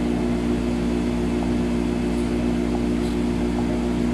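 Steady hum of a running ice cream vending machine's refrigeration machinery: a low drone with several steady tones over it, unchanging, with a few faint ticks.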